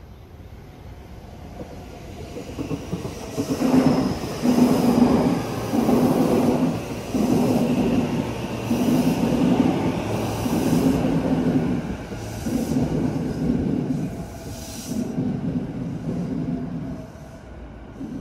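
JR Yokohama Line E233 series electric train running past and into the station, its wheels clacking rhythmically over rail joints. It grows loud about four seconds in, then slowly fades as the cars roll on toward the platform.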